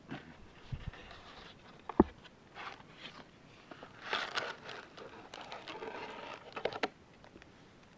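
Plastic wrap and cardboard of a trading-card blaster box being torn open and crinkled, with a sharp knock about two seconds in and a longer stretch of rustling near the middle and end.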